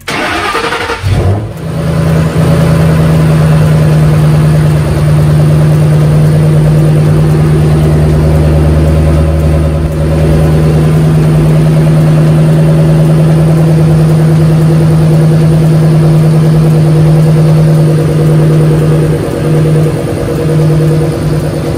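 A 2011–2012 Shelby GT500's supercharged 5.4-litre V8 fires up with a brief rev, then settles into a steady idle, run after an oil change to circulate the fresh oil.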